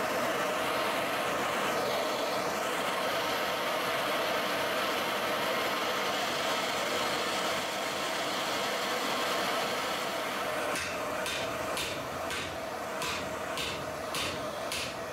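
Gas blowtorch running with a steady roar, heating a rusted, seized leaf-spring hanger. From about eleven seconds in, sharp metallic knocks come roughly twice a second, hammer blows on the hot hanger.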